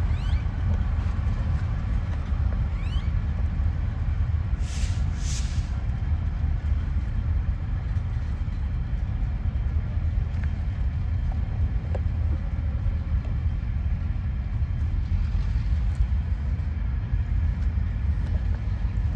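Steady low vehicle rumble, with two short hissy bursts about five seconds in.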